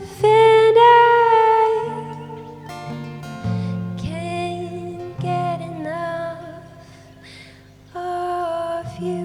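Soft song: a singer holds long, slightly wavering notes in a few phrases over acoustic guitar chords.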